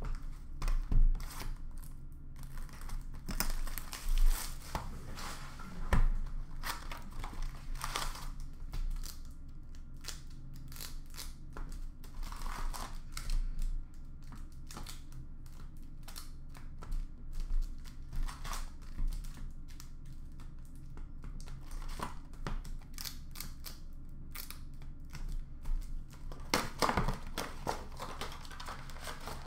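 Hands tearing open hockey card packs and boxes: irregular crinkling and tearing of wrappers and cardboard, with handling knocks. The loudest tears and knocks come in the first six seconds.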